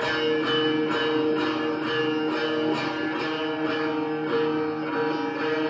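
Instrumental backing music with a steady beat and a plucked string instrument, between sung lines.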